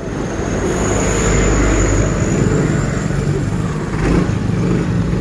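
A truck's engine running, a steady low rumble.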